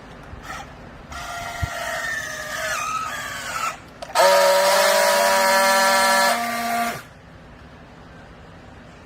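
Hydraulic baler machine running under load: a whine that wavers and sags in pitch for about three seconds, then a louder steady whine for about three seconds that stops abruptly.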